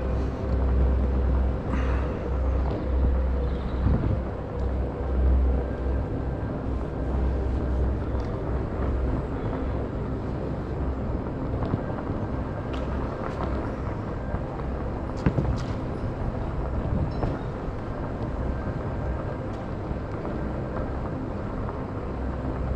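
Electric off-road Segway rolling over paved pedestrian street: steady tyre and drive noise with a faint steady hum, and a gusting low wind rumble on the microphone that is strongest in the first six seconds or so, plus a few small knocks.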